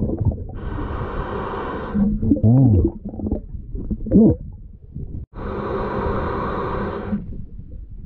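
Scuba regulator exhaust bubbles heard underwater: two long exhalations about five seconds apart, each a rushing bubble noise lasting a second and a half to two seconds. Between them come a few muffled, low, gliding tones.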